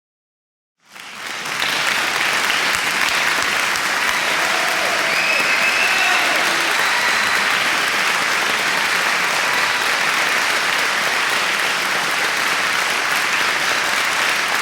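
Large crowd applauding: the clapping starts abruptly about a second in, swells to full strength within half a second and then holds steady, with a few scattered cheers and whistles over it.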